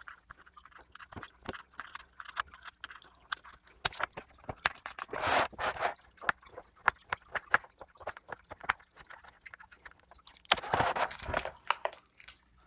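Fingers picking at and handling a cardboard marker box: a string of small scratches and clicks, with a longer crinkly rustle about five seconds in and another around ten to eleven seconds.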